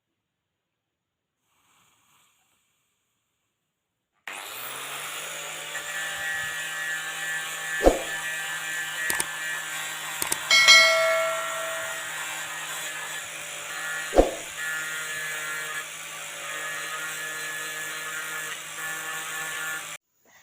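A steady mechanical running sound with a low hum and hiss starts about four seconds in and cuts off near the end, with two sharp knocks about six seconds apart.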